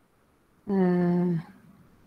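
A woman's voice holding one drawn-out hesitation sound, like "euh", for under a second, beginning under a second in, level in pitch throughout.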